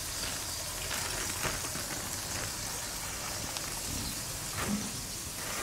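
Food sizzling in a frying pan, a steady hiss with faint crackles.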